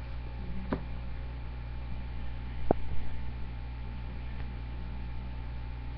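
Steady low electrical hum with faint hiss from the webcam recording setup, with two faint ticks, one about a second in and one a little before the middle.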